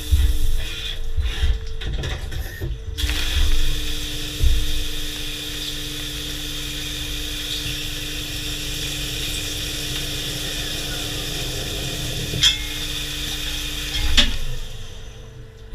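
CNC machine tool running a cut on a metal part: a steady motor hum under a hiss, busier in the first few seconds, with two sharp clicks near the end.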